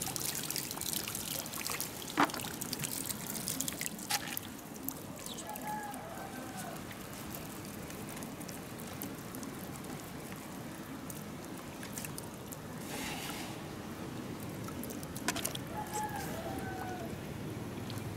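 Water trickling and dripping off a raised square lift net into muddy water, with a few small splashes and drips in the first few seconds.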